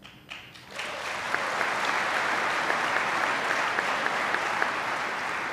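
An audience applauding: a few scattered claps, then full applause from about a second in, holding steady and easing slightly near the end.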